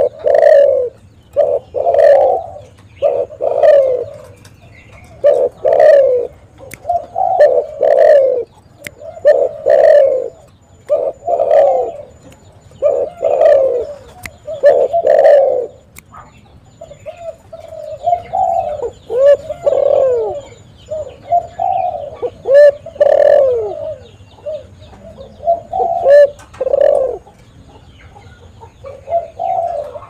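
Spotted dove (tekukur) cooing over and over in full song: a steady run of short low coos about one a second, turning after about halfway into looser phrases with falling notes, fainter near the end.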